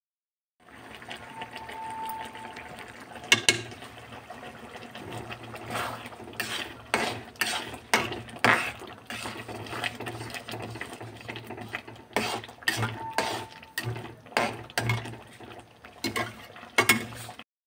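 A flat metal spatula stirring peas in a thin masala gravy in a metal kadhai: irregular scrapes and clanks of metal on metal, with a sharp clank about three seconds in.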